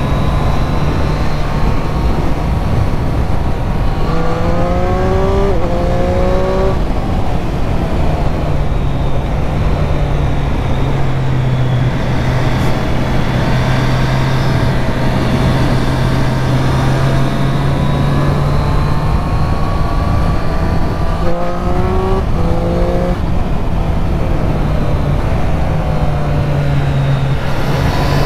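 2024 Triumph Street Triple RS's 765 cc three-cylinder engine running at a steady cruise, revving up through the gears twice, about four seconds in and again about twenty-one seconds in, each time a rising note that drops back at the upshifts. Wind rushes over the microphone throughout.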